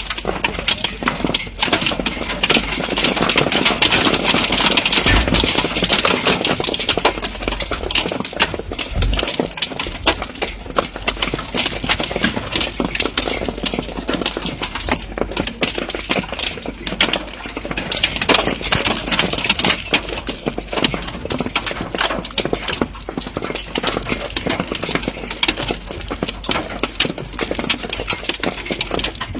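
Hailstones pelting hard surfaces in a dense, continuous clatter of countless sharp impacts over a rushing storm noise, heaviest for a few seconds early on and again about two-thirds of the way through.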